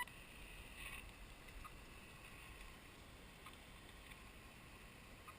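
Near silence: faint outdoor ambience with a brief click at the start and a few soft ticks.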